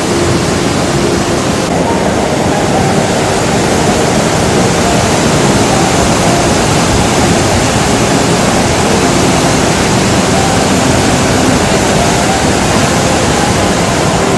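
Flash floodwater rushing down a valley: a loud, steady, unbroken rush of water noise.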